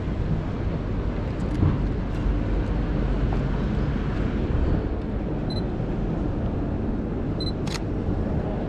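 Steady low rumble of street noise and traffic while walking. A Sony A6000 gives a short high focus-confirmation beep past the halfway point, beeps again near the end, and its shutter clicks right after as a photo is taken.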